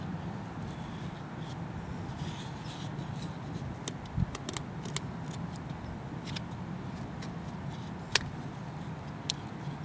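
Small clicks and taps of a shed reindeer antler being turned and fingered in the hands, with a thump about four seconds in and a sharp click just after eight seconds, over a steady low outdoor rumble.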